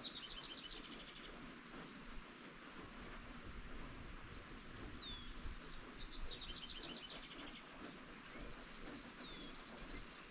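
Steady rain falling, with songbirds singing over it: several trilled phrases and a few short downslurred notes.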